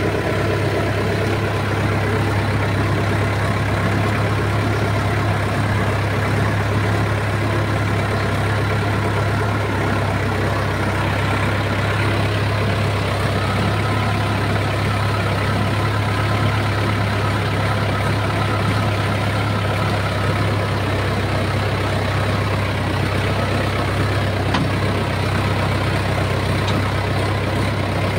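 Tractor diesel engine running steadily under load, heard close up from the driver's seat as the tractor drives through a muddy paddy field.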